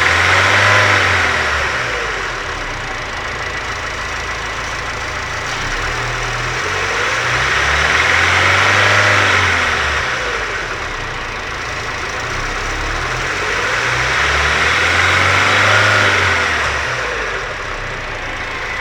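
Nissan SR20DET turbo four-cylinder engine running, its revs rising and falling slowly three times, about every seven seconds. The adjustment is at its lowest setting, where the owner says the bad noise is gone.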